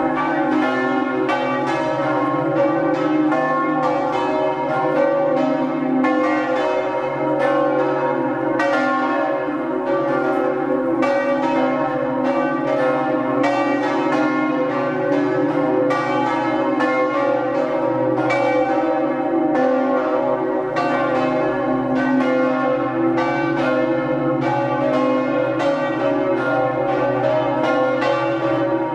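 Several church bells pealing for a wedding: a continuous, unbroken peal of rapid strikes whose tones ring on into one another.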